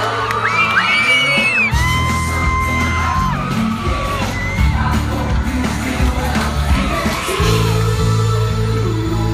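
A pop band playing live, with singing over steady bass and drums, while fans scream and whoop, loudest in the first couple of seconds.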